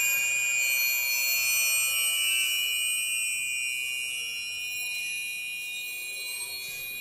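Hanging thin metal rods stroked lengthwise with gloved hands, giving a dense cluster of high, steady ringing tones that slowly fade.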